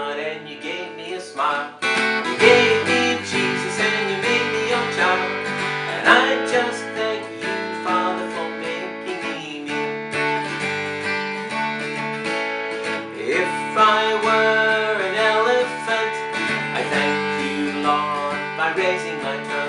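A man singing a children's worship song while strumming a steel-string acoustic guitar.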